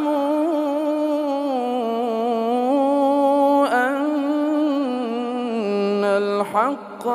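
A man's voice reciting the Quran in melodic chant, holding long drawn-out notes with small ornamental turns, with a short break about halfway and a drop to a lower note near the end.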